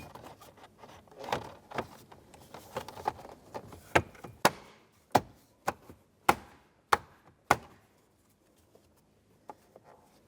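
Plastic steering column trim being pushed and snapped into place: sharp clicks and knocks, with a run of about seven evenly spaced loud clicks in the middle, then quieter handling.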